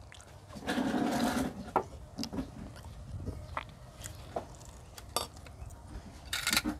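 Light clicks of a spoon and fork on plates and bowls during a meal, with a short brushing noise about a second in and another near the end.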